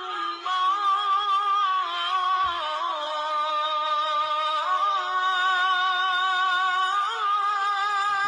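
A single voice chanting in long, held notes that waver and slide between pitches, with no instruments.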